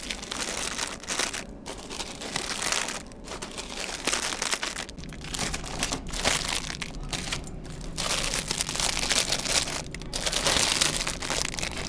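Plastic snack bags crinkling in irregular bursts as they are handled and pushed into the spiral coils of a snack vending machine being restocked.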